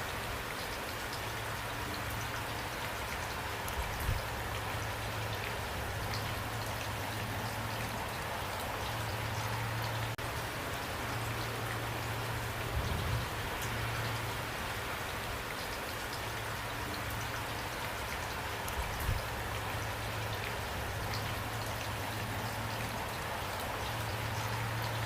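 Steady rain falling, with individual drops ticking over an even hiss. A low rumble comes and goes beneath it, with a few soft low thumps.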